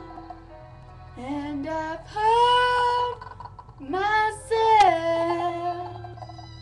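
A female voice singing two long, wordless held phrases, sliding up into each note, over a slow instrumental backing track.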